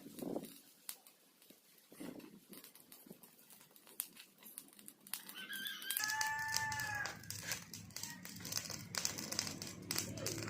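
A rooster crows once, about five seconds in, a single drawn-out call lasting roughly two seconds, over scattered crackling and rustling. A steady low hum starts at around six seconds.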